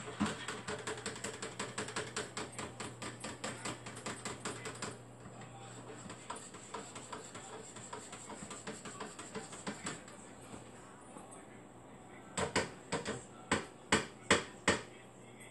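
A spoon stirring briskly in a cup, clicking against the sides about five times a second, then going on more faintly. Near the end come several louder, spaced taps of the spoon against the cup.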